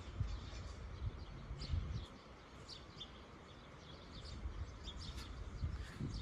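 Small birds chirping faintly in short, scattered calls over a low outdoor rumble.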